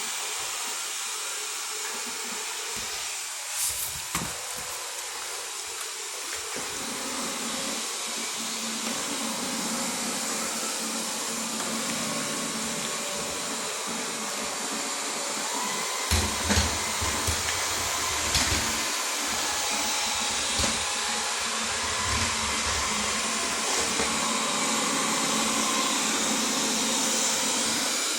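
Wyze LiDAR robot vacuum running, with a steady whirring hiss from its suction and brushes. A lower rumble joins about a third of the way in and grows stronger past the middle, with a few sharp clicks and knocks along the way.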